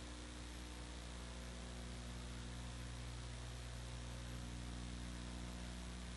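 Steady electrical mains hum with a constant hiss: recording noise with no other sound.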